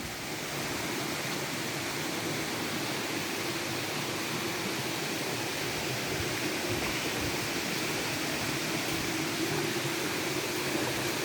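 Waterfall water pouring steadily into a pool, an even noise with no breaks.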